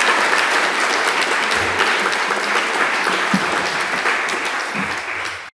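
Audience applauding, a dense steady clatter of many hands clapping that cuts off abruptly near the end.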